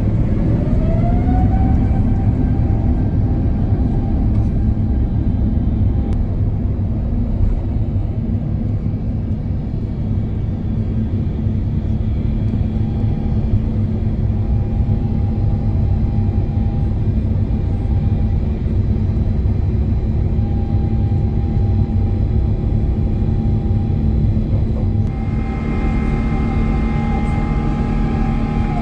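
Airbus A350-900's Rolls-Royce Trent XWB-84 turbofan engines at takeoff power, heard from a cabin window seat near the wing. A whine rises over the first couple of seconds as the engines spool up, then a steady roar carries on through the takeoff roll and climb.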